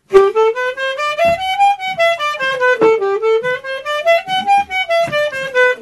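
Accordion playing quick single notes up a scale of about an octave and back down, twice.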